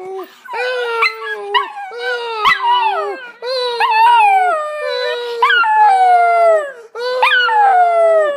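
Chiweeny (chihuahua–dachshund mix) puppy howling: a string of drawn-out howls, each dropping in pitch at its end, the longest ones near the middle.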